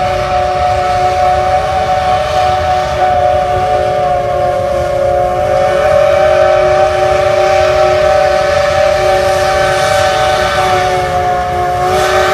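Steam locomotive whistle sounding one long, steady chord of several notes for about twelve seconds, cutting off near the end, over a low rumble.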